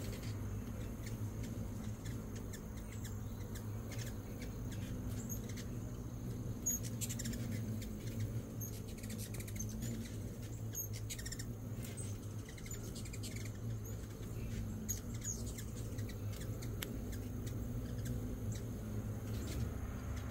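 Hummingbirds at a feeder giving short, very high chip notes scattered throughout, over a steady low hum.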